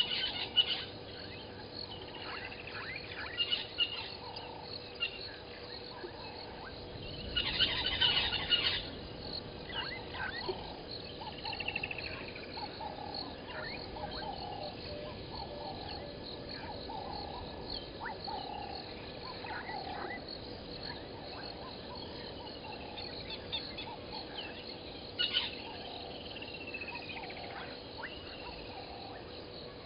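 Wild bush chorus of birds and frogs: many short chirps, calls and falling whistles over a steady background, with a louder cluster of calls about eight seconds in.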